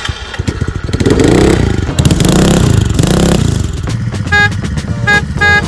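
A vehicle engine running and revved up and down several times, then three short horn beeps near the end.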